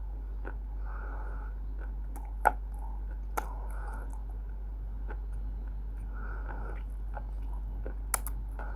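Close-up biting and chewing of crunchy roasted multani mitti (fuller's earth clay). There are a few sharp crisp snaps, the strongest about two and a half seconds in and again near the end, with softer grinding chews between them, over a steady low hum.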